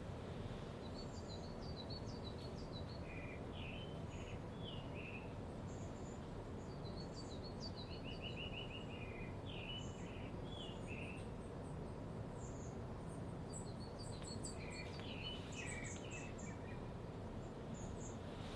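Small birds chirping and singing in short, scattered phrases, including a quick run of repeated notes, over steady low background noise.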